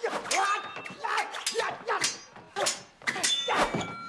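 Movie sword-fight sound effects: a rapid string of hits and katana blade clashes, several of them ringing briefly like struck steel, mixed with fighters' grunts and shouts.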